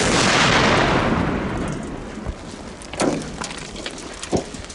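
A vehicle explosion: a loud blast that rolls on as a rumble, dying away over about two seconds, followed by scattered sharp cracks and thuds.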